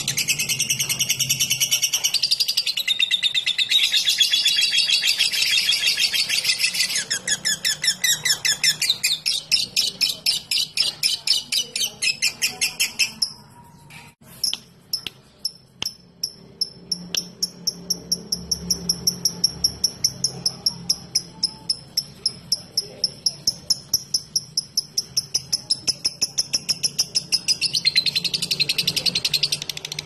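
Fischer's lovebird singing its long chattering 'ngekek' song: a dense, high, unbroken chatter that turns into a fast pulsed trill. About halfway through it breaks off briefly with a few clicks, then gives a long run of evenly repeated high ticking notes, several a second, before the dense chatter resumes near the end.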